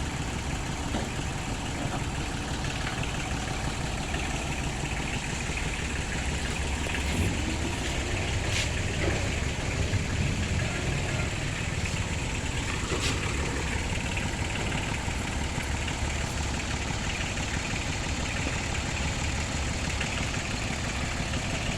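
Small Kubota diesel engines of the palm-fruit carts idling steadily, getting a little louder for several seconds in the middle, with a couple of sharp clicks.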